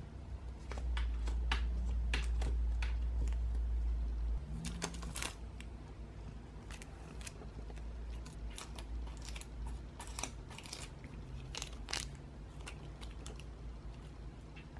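A cat chewing and batting at scraps of paper and tape on a desk: scattered small crinkles, crunches and clicks. A low rumble runs under it, loudest for about the first four seconds.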